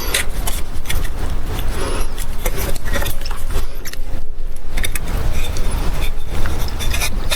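Irregular clicking, clattering and scraping from hands working PVC irrigation pipe and fittings, over a steady low rumble.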